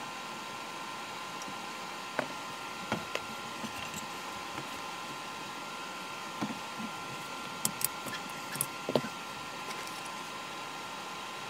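Scattered small clicks and knocks as parts of a Remington Score Master Model 511 .22 rifle are handled and fitted, over a steady background hiss. The clicks come in loose clusters, busiest a little past the middle.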